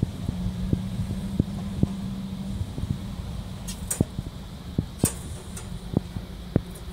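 A zebra finch giving a few short, high chirps about four and five seconds in, over a steady low hum that stops partway and irregular soft low taps.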